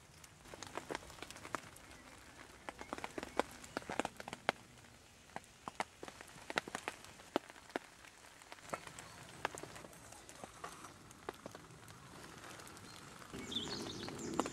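Scattered raindrops tapping irregularly on wet leaves and metal, a few sharp ticks a second.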